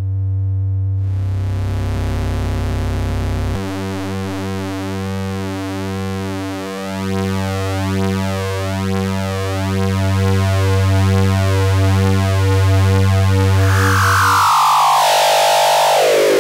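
Schlappi Engineering Angle Grinder, an all-analog quadrature VCO and waveshaper eurorack module, sounding a steady buzzy synth drone whose harmonics shift and pulse about twice a second as its sliders are moved. Near the end the pitch glides steeply downward with a harsh hiss on top as the frequency knob is turned.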